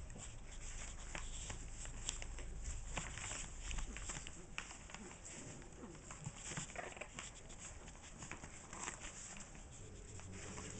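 Four-week-old French bulldog puppies play-fighting on newspaper: many short crinkles and rustles of the paper under their paws, with occasional small vocal sounds from the puppies.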